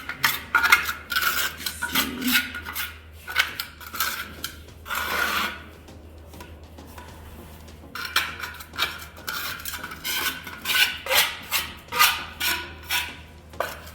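Grout being worked into tile joints: repeated rasping scrapes of a grouting tool across tiles, in irregular strokes with a lull of about two seconds midway.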